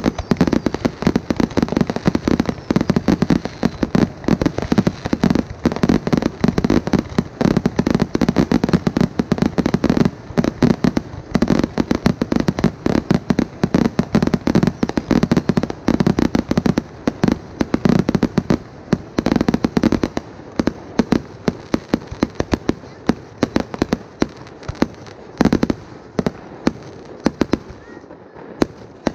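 Fireworks barrage: a dense, rapid run of launches and bursts that thins out over the last several seconds to scattered pops.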